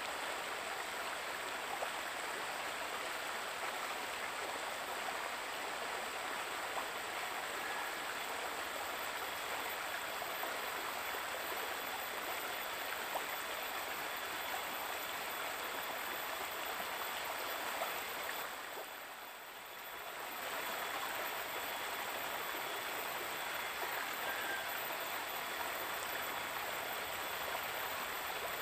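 A shallow river running over rocks, a steady rushing burble that dips briefly about two-thirds of the way through.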